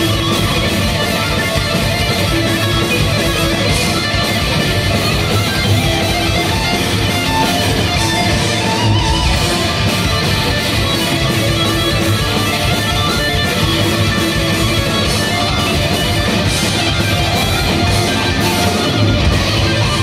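Live heavy metal band playing at full volume: distorted electric guitars and bass over a steady drum beat.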